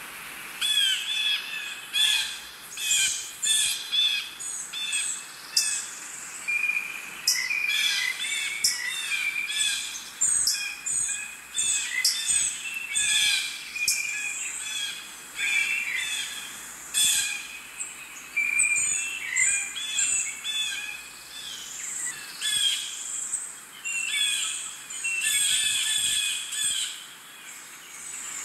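Birds chirping and calling: many short, sharp notes in quick clusters, overlapping one another.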